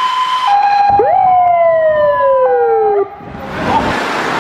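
Emergency sirens: a two-tone hi-lo siren alternating, joined about a second in by a wailing siren that rises sharply and then slowly falls. Both stop abruptly about three seconds in, leaving wind and road noise from the moving motorcycle.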